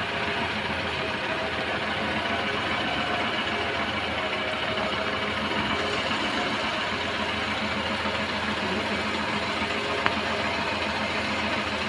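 Car engine idling steadily, with a single light click near the end.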